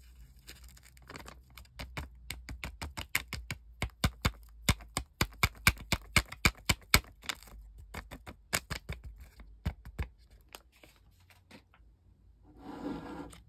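Paper hot cocoa envelope being shaken and tapped over a mug to empty the powder, a fast run of sharp crinkly taps several a second that thins out after about ten seconds. A short scraping rustle comes near the end.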